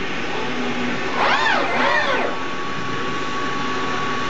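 Servo motors in a Fanuc robot and HAAS CNC mill machine-tending cell whine through two quick moves, each a whine that rises and falls in pitch, over steady machine noise. A steady high tone sets in partway through.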